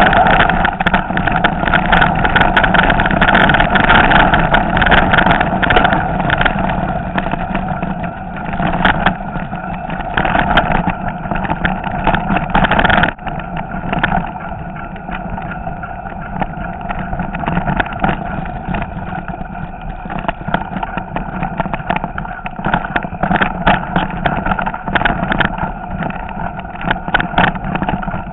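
Mountain bike rattling down a rough trail of stones and wet leaves, heard from a handlebar-mounted camera: a steady, loud noise of tyres and frame with many sharp knocks from bumps. It drops somewhat in level about halfway through.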